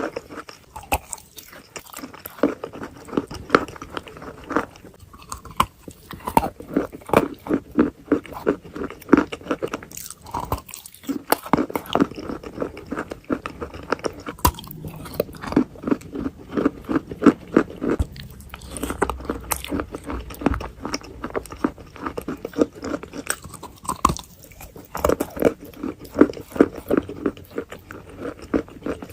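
Close-miked chewing and biting of wet chalk mixed with clay paste: a dense run of wet crunches and mouth sounds, pausing briefly now and then.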